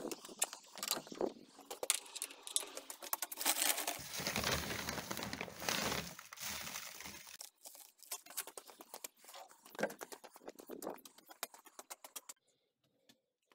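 Plastic sack of plasterer's sand crinkling and rustling as a hand digs in and scoops out a handful of sand, loudest a few seconds in. Irregular footsteps come before and after, and it goes almost quiet near the end.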